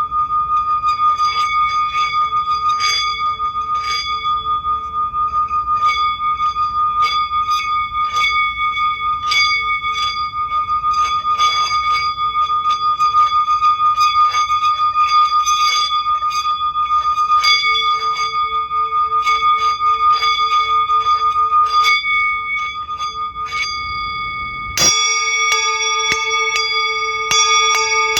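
Metal singing bowls and bells: one bowl holds a steady ringing tone while small metallic strikes sound over and over. About 25 s in, a louder strike rings out with a lower, fuller tone.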